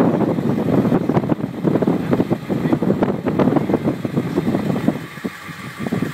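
Strong gusty wind buffeting the microphone in a loud, uneven rumble that eases briefly about five seconds in.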